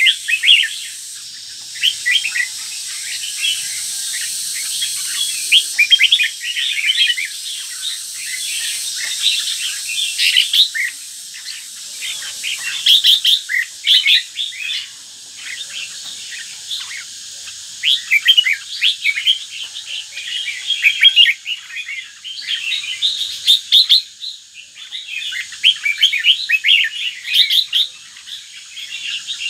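Red-whiskered bulbul of the northern Vietnamese strain singing: rapid runs of bright chirping and warbling notes in phrases of a few seconds, with short lulls between, over a faint steady high hiss.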